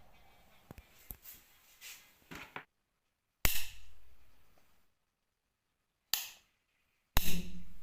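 A few light clicks, then three loud sharp bangs, each fading out within about a second: one about three and a half seconds in and two more near the end.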